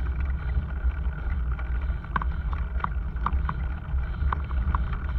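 Wind buffeting the microphone of a camera mounted on a moving bicycle, a low, unsteady rumble, with a few short high ticks in the second half.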